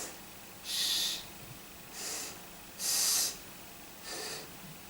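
A man hissing the consonant 's' on its own, five short hisses about a second apart, demonstrating the soft English S.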